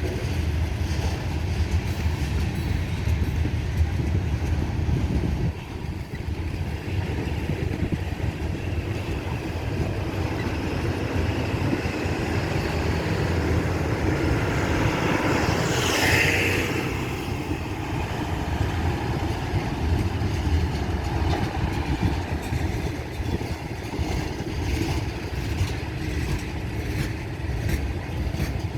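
Freight train cars rolling slowly past at about 10 mph, a steady low rumble of wheels on rail, with a brief louder whoosh about halfway through.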